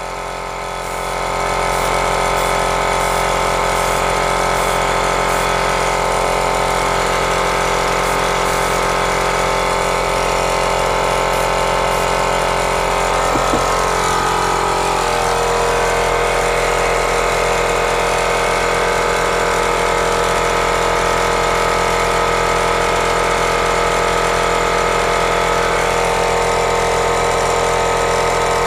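Handheld hair dryer running steadily, blowing on a freshly airbrushed crankbait to dry the wet paint. It comes on about a second in, and its tone shifts slightly about halfway through.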